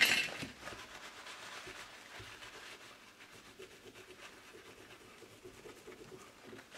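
Paper towel rubbing and scrubbing across a Pentium III slot-CPU circuit board. It opens with a louder paper rustle that dies down within about half a second, then a steady faint scratchy wiping sound.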